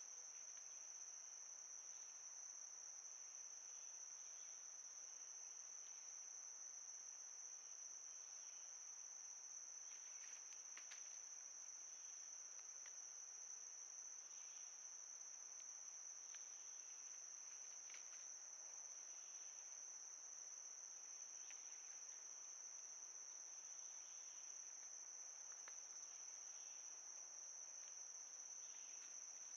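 Faint, steady high-pitched insect chorus, with a few soft ticks here and there.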